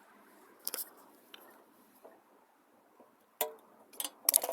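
Scattered light clicks and taps as a Zippo lighter and a can of lighter fluid are handled, a few single ticks about a second apart, then a quick cluster of clicks near the end.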